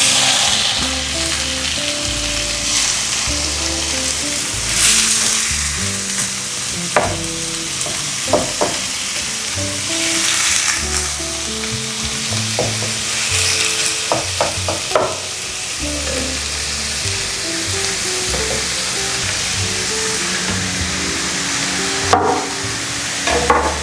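Beef sizzling as it fries in a nonstick pan, with a utensil scraping and knocking against the pan every so often as it is stirred.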